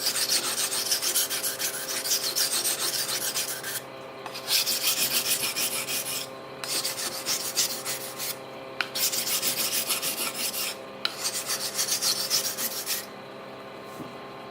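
Damascus steel knife blade being sharpened by hand: fast rasping strokes of the edge on an abrasive sharpener, in runs broken by brief pauses, stopping near the end.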